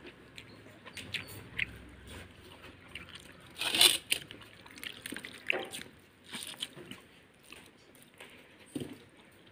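A hand squeezing and stirring water-soaked rice (basi pakhala) in a steel bowl: scattered wet squishes and small splashes, the loudest about four seconds in.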